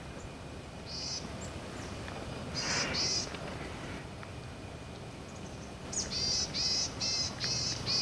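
Boreal chickadees calling: a high note about a second in, two more near three seconds, then a quick run of about six repeated call notes near the end.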